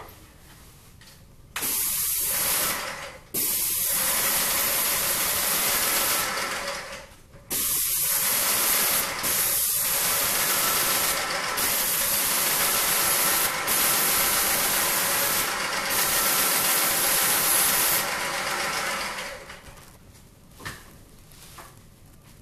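Paint spray gun on an extension pole hissing as it sprays a ceiling, in long bursts that start about one and a half seconds in, break off briefly twice in the first eight seconds and stop a few seconds before the end.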